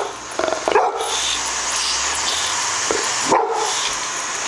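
Boxer dog barking several times at a deflating exercise ball, over the steady hiss of air escaping from the ball.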